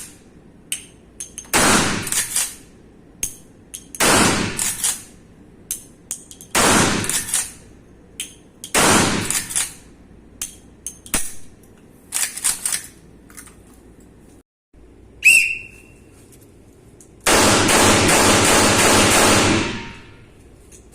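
Four single gunshots fired at a steady, deliberate pace, about two and a half seconds apart, each ringing out for about a second. Lighter clicks of gun handling follow, then a short high beep and a steady hiss of almost three seconds near the end.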